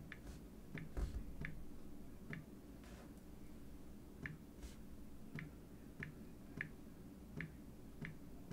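Typing on a smartphone's on-screen keyboard: about ten short, unevenly spaced clicks, one per key pressed, with a low thump about a second in.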